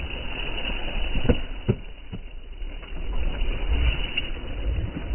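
A slotted skimmer knocking twice in quick succession against a large iron karahi of frying oil, a little over a second in, over a steady noisy haze and low rumble.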